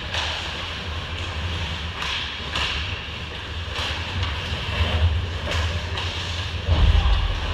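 Ice hockey play on the rink: skate blades scraping the ice and sticks and puck clacking in several short sharp hits over a steady low rumble, with a heavy thump near the end.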